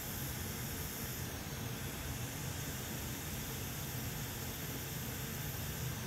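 Hot air rework station blowing with a steady hiss, heating the graphics card board so that the solder holding the broken connector pins melts and the pins can be pulled out.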